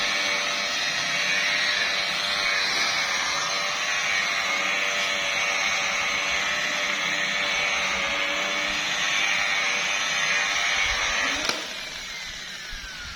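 Handheld electric polisher running steadily against car paint, then switched off about 11 seconds in, its motor winding down with a falling whine.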